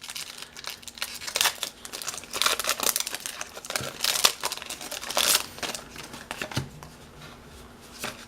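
Foil wrapper of a Pokémon Flashfire booster pack being torn open and crinkled: irregular crackling rustles for about seven seconds, then quieter handling near the end.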